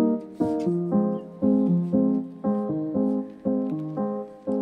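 Background music of struck keyboard chords, a new chord about twice a second, each one dying away before the next.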